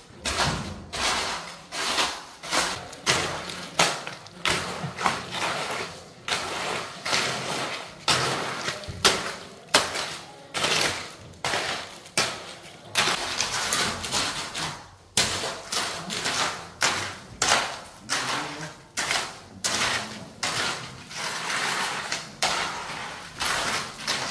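Repeated knocks and clattering thuds, about two a second, keeping up steadily.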